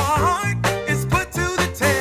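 Background music with a steady beat, a bass line and a wavering melody on top.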